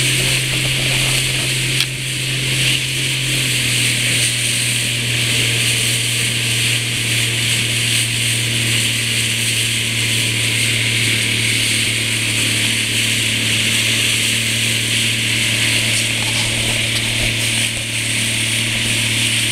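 Motorboat engine running steadily at cruising speed, a constant drone, with the rushing hiss of the wake and wind over it.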